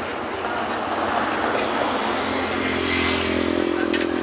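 Small single-cylinder motorcycle engine of a homemade buggy running at idle, a steady hum that grows stronger about halfway through, with a couple of light clicks.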